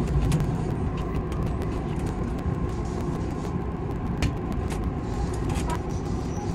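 Odakyu 8000 series electric train running, heard from the driver's cab: a steady low rumble with scattered short clicks and knocks.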